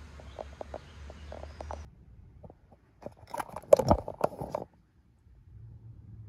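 A string of close clicks and scrapes, densest and loudest about three to four and a half seconds in. A low steady hum under scattered ticks in the first two seconds stops abruptly.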